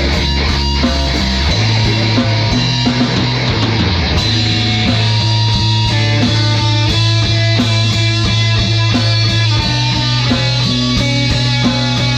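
Heavy rock music with electric guitars and bass over a steady, evenly struck beat, the bass line moving to a new note every few seconds.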